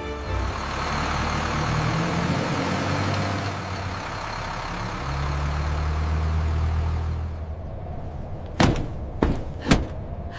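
Cartoon sound effect of a bus engine running, with a steady low drone under a long hiss that fades out about seven seconds in. Two short, sharp sounds follow near the end.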